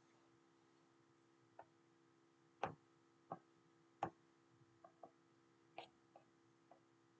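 About ten light clicks and taps at uneven spacing over a quiet room hum, the loudest two about two and a half and four seconds in.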